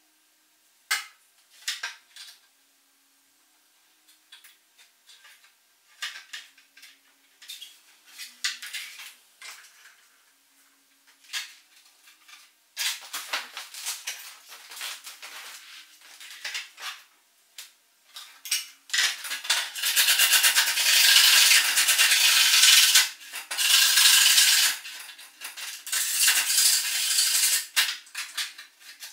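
Thin 3D-printed plastic RC plane wing parts being handled and worked: scattered light clicks and taps, then, in the last third, a long stretch of loud scraping and rubbing against the plastic.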